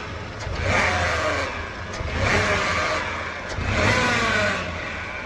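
Chevrolet Onix three-cylinder engine revved in about three quick blips, each with a whine that rises and then falls. The resonance at higher revs comes from a dented oil pan squeezing the oil pickup passage as the oil pump draws harder, as the mechanic explains it.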